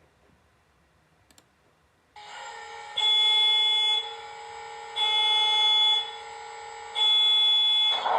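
Recorded EMD SD70ACU locomotive sounds played by a LokSound 5 sound decoder through a small model-train speaker: a steady electronic alarm tone that swells into three one-second beeps about two seconds apart. Just before the end a rushing noise starts.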